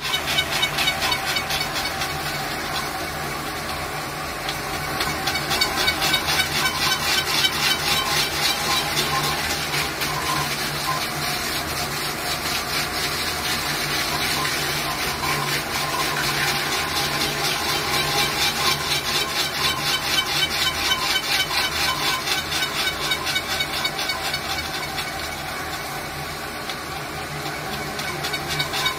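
Phone-glass lapping and polishing machine running: a steady hum under a rapid, even pulsing.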